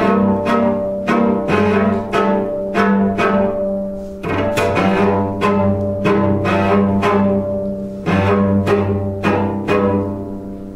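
Instrumental string music: plucked notes at an even pace of about two a second, each dying away, over low sustained bowed notes that pause briefly twice.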